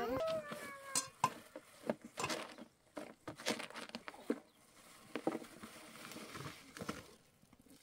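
Irregular light clicks and knocks of pots, utensils and dishes being handled.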